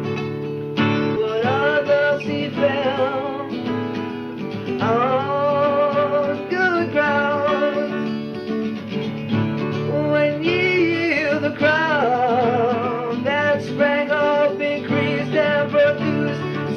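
Song with guitar accompaniment and a voice scat-singing wordless melodic lines with wide vibrato and sliding pitch.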